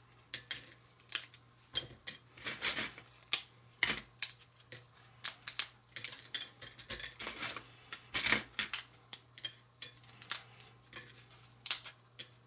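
Crisp corn tortilla chips being snapped by hand into half-inch pieces, giving a series of short, sharp cracks at an irregular pace.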